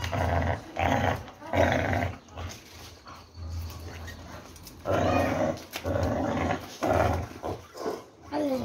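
Pit bull growling in repeated short bursts while it grips and tugs a rope toy on a spring pole, with a quieter lull in the middle.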